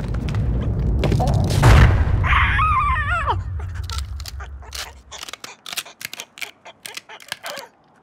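Cartoon sound effects: a low rumble builds to a loud boom about two seconds in, followed by a wobbling, warbling cry, then a scatter of short clicks and knocks.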